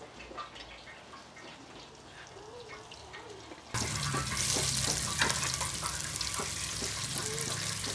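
Cauliflower fritters frying in hot oil in an enamel pan: faint and low at first, then, just before halfway, the sizzling comes in suddenly loud and steady, with a few light clicks of a metal spatula turning the fritters.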